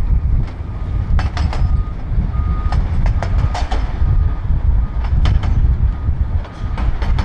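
Volvo L350F wheel loader's diesel engine running under load as the machine backs away from the rock pile with a full bucket, its reversing alarm giving repeated short single-pitch beeps. Sharp knocks and rattles sound over the low engine rumble.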